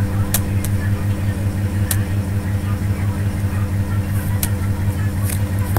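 A steady low hum runs throughout, with a few short, sharp clicks of a computer mouse.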